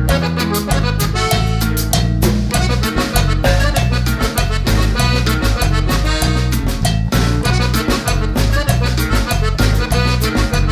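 Background music: an upbeat Latin-style track with a steady beat and a busy bass line.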